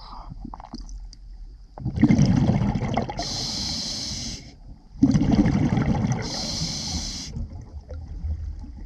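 A scuba diver breathing underwater through a regulator: two breaths, each a burst of bubbling from the exhaled air followed by a high hiss from the regulator.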